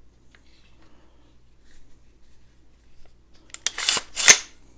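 Stag Arms Stag-15 AR-15's action worked by hand after a few seconds of faint handling: a short metallic slide, then a sharp metal snap as the bolt carrier group runs forward.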